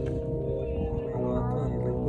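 Background music of sustained, steady tones.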